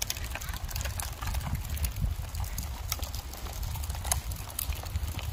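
Small plastic wheels rolling over a paving-stone footpath: a low rumble with light, irregular clicks at the joints.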